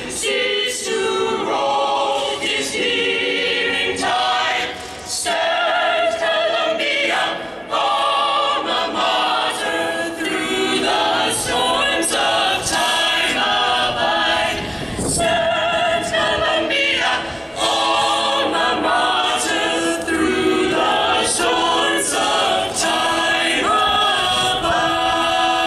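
An a cappella choir singing, amplified over outdoor loudspeakers.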